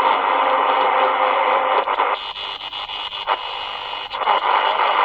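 XHDATA D-219 pocket radio's speaker hissing with static on a weak or between-station signal, the sound cut off above the treble like a narrow AM reception. For about two seconds in the middle it drops quieter with a few crackles, then the loud hiss returns.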